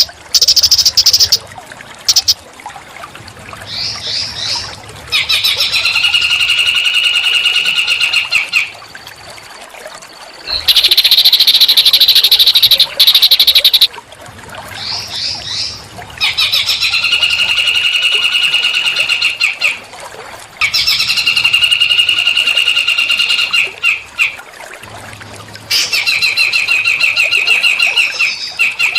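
A small songbird singing a string of rapid, buzzy trills, each lasting about three to four seconds, with short pauses between them. Quick rising notes come before some of the trills.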